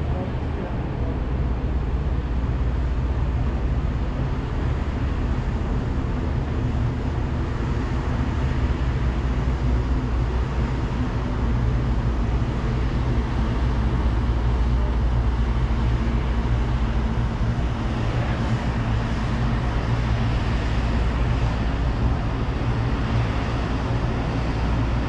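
Steady low engine rumble of a fast catamaran ferry passing close by in harbour, with a rushing hiss that grows over the last several seconds.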